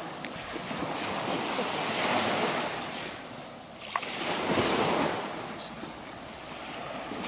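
Surf washing onto the shore, swelling and easing twice, with wind buffeting the microphone. A single brief click about four seconds in.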